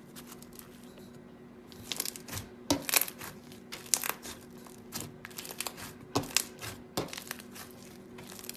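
Glitter slime being squeezed and poked by hand, giving irregular sharp crackles and pops, starting about two seconds in.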